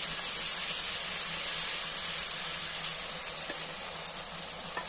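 Ginger and cumin pastes frying in hot oil in a kadai, a steady high sizzle.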